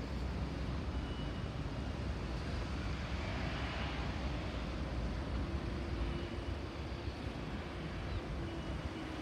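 Steady outdoor background rumble, heaviest in the low end, with a faint steady hum coming in about halfway through.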